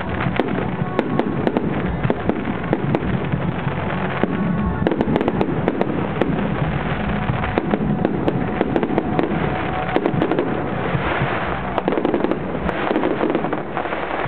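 Aerial firework shells bursting in quick succession, a dense run of bangs and pops with crackling between them. A hissing crackle swells toward the end.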